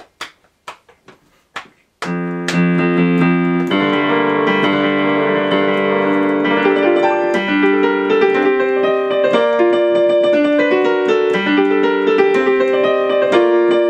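Digital piano heard through loudspeakers, playing sustained chords with a moving upper line. It comes in about two seconds in, after a few sharp clicks.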